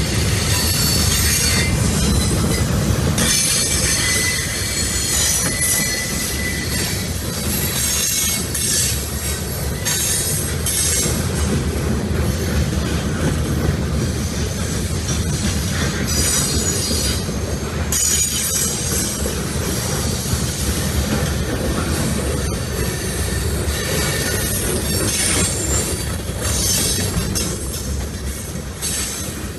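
Freight cars of a CSX manifest train rolling past, with a steady low rumble of wheels on rail and high-pitched wheel squeal that comes and goes.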